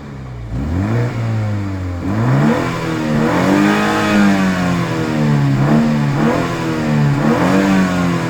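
BMW M135i xDrive engine and exhaust revving, the pitch climbing and falling again in several smooth sweeps.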